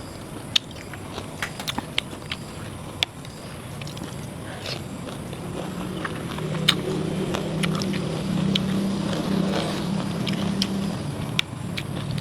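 Eating at close range: scattered sharp clicks of chewing and mouth noises, with a low rumbling hum that swells in about halfway through and fades near the end.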